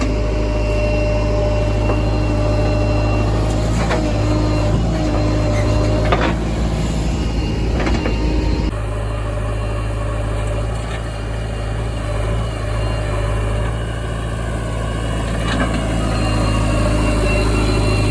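Heavy diesel engine of a backhoe loader running steadily while digging and loading mud, with a few sharp clanks in the first half. The sound changes abruptly about nine seconds in.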